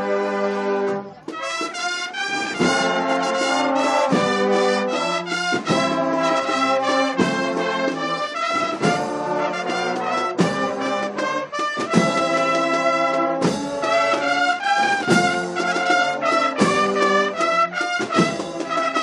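Andalusian processional band (agrupación musical) of trumpets, trombones and drums playing a march, with drum strokes on a steady beat; a brief break in the music about a second in.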